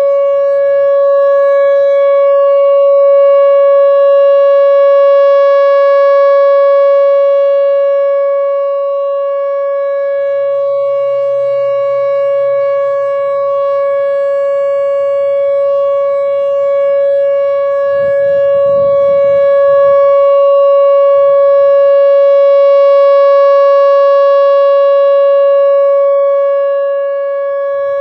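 Whelen WPS-4004 electronic outdoor warning siren sounding the full-alert cycle: one steady, unwavering tone with overtones, gently swelling and easing in loudness. It sounds not very loud, which the recordist puts down to only two of its speaker drivers being used.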